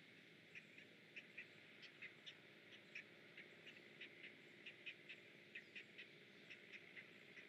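Faint begging chatter of great blue heron nestlings: short high calls in a quick, irregular run of about three or four a second.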